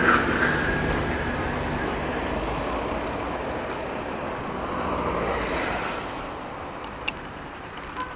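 Road traffic noise from nearby cars: a steady rumble of engines and tyres, loudest at the start and easing off over the last couple of seconds, with a single sharp click about seven seconds in.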